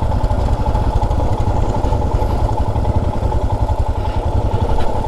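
Royal Enfield Himalayan motorcycle's single-cylinder engine running steadily as it is ridden, a low pulsing rumble.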